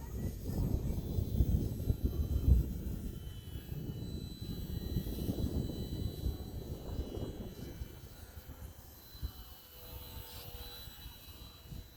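Wind buffeting the microphone in gusts, with the thin, steady whine of a HobbyZone Sport Cub S2 RC plane's electric motor and propeller. The wind rumble is loudest in the first half and eases off in the last few seconds.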